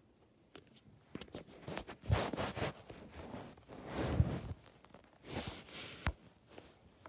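Fabric comforter rustling and brushing in a few short bursts as it is handled, with one sharp click about six seconds in.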